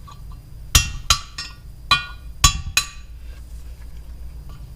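About five sharp metal-on-metal strikes with a short ring after each, spaced a third to half a second apart, in the first three seconds: a hammer knocking a socket and extension down onto cylinder-head valve spring retainers to break the valve collets free.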